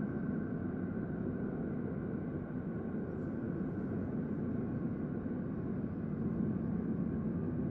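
Steady low sci-fi ambient drone: a deep, even rumbling hum with a faint higher tone held above it, unchanging throughout.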